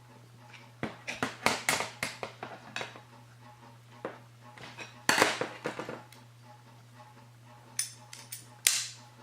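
Metal clinks and scrapes of a steel screwdriver worked in the hole of a locking pliers' adjusting thumb screw, levering it tighter: a quick run of sharp clicks, a longer scrape about five seconds in, and a few more clicks near the end.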